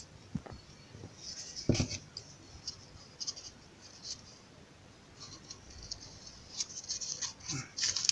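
Hands working a small wooden drawer piece held in a bar clamp: faint scratching and rubbing of fingers and wood, with scattered light clicks and one sharper knock a little under two seconds in.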